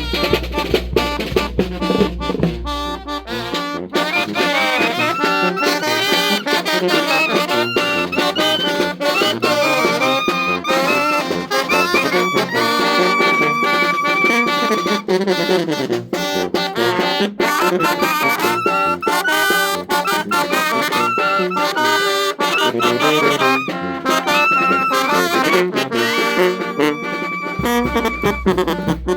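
Brass band playing a ranchera tune, horns carrying the melody with no singing. The deep bass drops out about four seconds in and comes back near the end.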